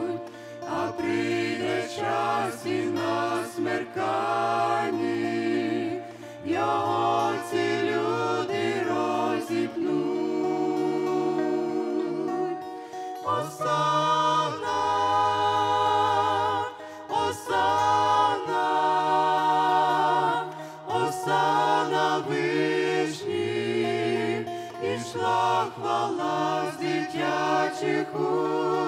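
A small mixed group of women's and men's voices singing a Ukrainian Christian hymn in harmony, phrase by phrase with vibrato on held notes, over sustained low instrumental accompaniment.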